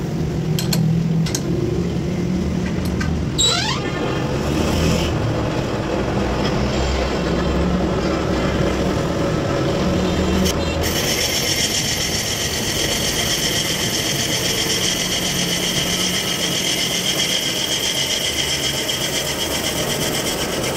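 Metal lathe running with a motorcycle wheel hub spinning in it, the cutting tool turning the hub's metal. About halfway through a steady high-pitched ringing joins the machine noise and holds.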